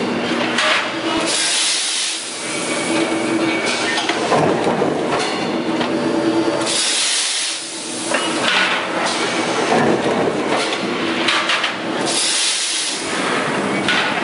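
Automated hot-forging press line for bevel gears cycling: loud hissing bursts of spray and steam at the dies recur about every five and a half seconds, among metallic clanks and knocks and a steady machine hum.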